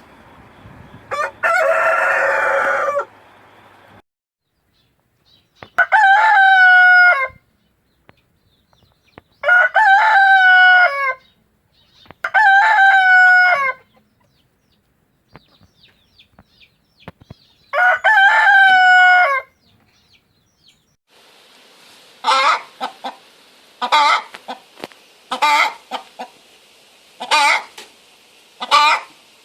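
Rooster crowing: a first crow over a hissy background, then four long crows of about a second and a half each, with a run of short clucks near the end.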